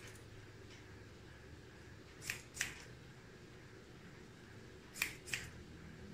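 Barber's hair-cutting scissors snipping hair: two pairs of quick snips, the second pair about two and a half seconds after the first.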